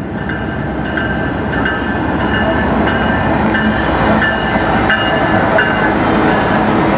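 CN diesel-electric freight locomotive passing close by, its engine and the wheels on the rails growing louder over the first couple of seconds, then steady.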